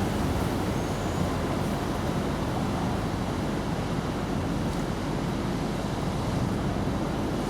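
Steady wind noise on the microphone: an even low rumble with hiss.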